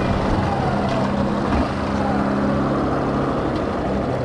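Yamaha Factor 150's single-cylinder engine running at low, steady revs as the motorcycle rolls slowly, with a noise haze of wind and road under it.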